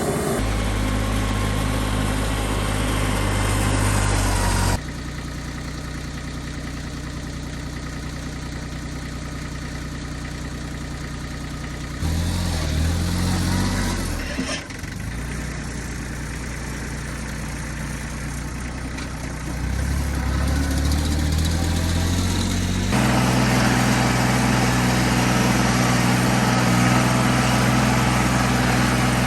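Engine running steadily, jumping abruptly in pitch and level a few times, with its revs rising and falling around the middle and again later.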